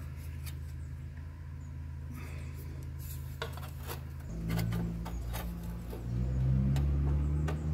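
Light clicks and taps of a small sheet-steel repair panel being handled and fitted by hand against a car's A-pillar, over a steady low hum that gets louder and wavers in pitch about four seconds in.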